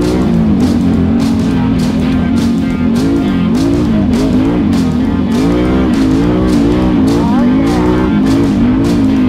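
Background music with a steady beat and guitar, laid over an ATV engine running as the rider works the throttle, its revs rising and falling.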